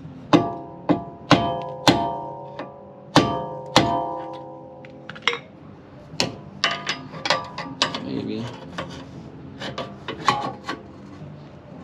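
Hammer blows on seized steel rear-suspension parts: six sharp metal-on-metal strikes in the first four seconds, each ringing briefly, knocking a bound-up sway bar link and tie rod end free. After that comes a run of lighter clicks and clinks of tools on metal.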